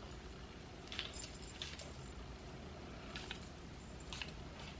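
Faint handling of a glass perfume bottle: a few short, light clicks and rattles, spaced out over a few seconds.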